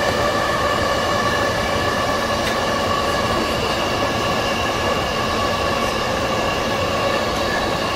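JR East E233-1000 series electric train running at steady speed through a tunnel, heard from inside the leading cab car: a loud, even running noise with several steady high tones over it.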